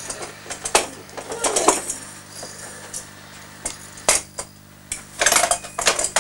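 Hard plastic toy pieces clattering and knocking as a small child handles a toy playset: a string of sharp clicks and knocks, with a longer rattling clatter about five seconds in.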